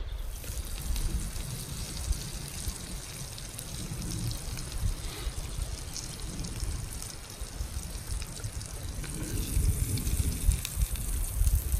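Asparagus sizzling in a pan on a Trangia 27 spirit stove: a steady crackling hiss. Wind rumbles on the microphone underneath, getting stronger near the end.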